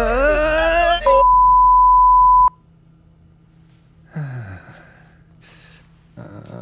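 A voice crying out in distress for about a second, then cut off by a loud, steady beep tone that lasts about a second and a half and stops abruptly. After it, quiet room tone with a brief soft sound about four seconds in and faint shuffling near the end.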